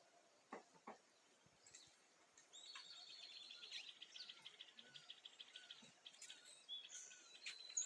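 Faint dawn birdsong: a high, rapid trill begins about two and a half seconds in, with scattered chirps around it. Two soft clicks come in the first second.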